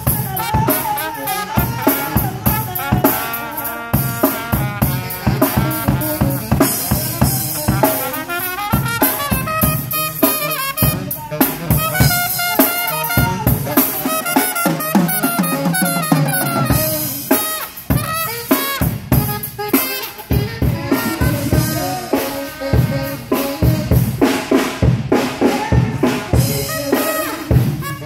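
Live dance band playing: a drum kit keeps a steady beat under trumpet and saxophone.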